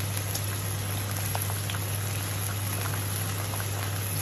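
Cooked lamb and masala sizzling and bubbling in an aluminium pot as it is fried down (bhuna), a steady crackle with small scattered pops over a low steady hum.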